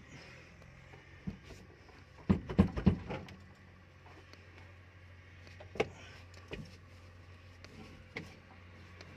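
A quick run of several loud knocks and clatters about two seconds in, with single knocks later. A steady low hum sets in about three seconds in.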